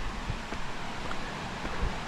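Footsteps on a dirt forest trail, with a couple of soft thuds, over a steady rushing background noise.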